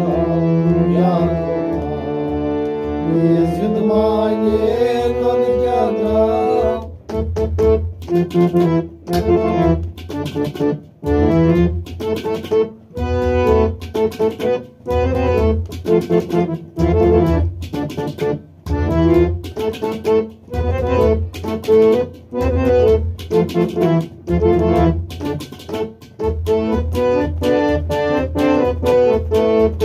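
Harmonium with a clay pot drum beating a steady rhythm. A man sings over them for about the first seven seconds, then the harmonium plays a quick instrumental passage, its phrases punctuated by the drum strokes.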